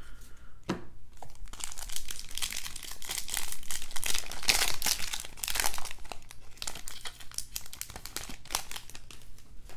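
Plastic wrapper of a Topps Opening Day baseball card pack being torn open by hand and crinkling, a dense crackle that is loudest about halfway through.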